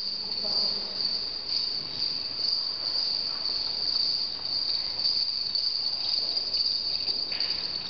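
High-pitched, steady shrilling of an insect chorus, pulsing slightly in level.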